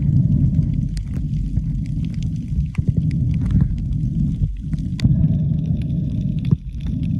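Muffled underwater rumble picked up by an action camera held under the sea, with scattered sharp clicks and knocks.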